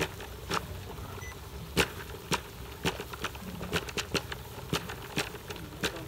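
Wok of water at a rolling boil over a wood fire: irregular sharp pops and crackles, one or two a second, over a steady hiss.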